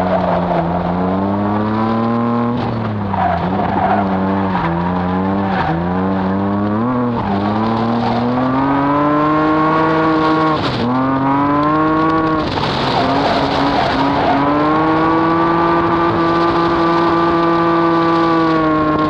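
Naturally aspirated RB25DE straight-six of an R32 Nissan Skyline, heard from inside the cabin while the car is driven hard. The revs rise and fall with the throttle: a run of quick rises and drops in pitch, then a long climb, then a sharp drop about eleven seconds in. The revs then climb again and hold steady near the end.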